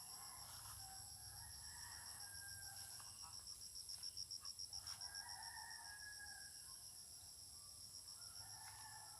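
Steady high trilling of insects, with a rooster crowing in the distance.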